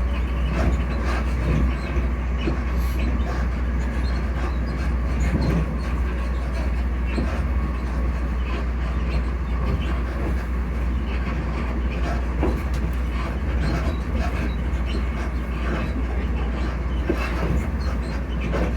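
Class 334 electric multiple unit heard from inside while running: a steady low rumble of wheels on rail under the traction motor hum, with occasional faint clicks from the track.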